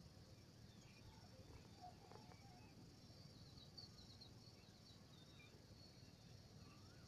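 Near silence with faint rural ambience: a steady, high insect drone with flickering chirps, and a few scattered faint bird chirps.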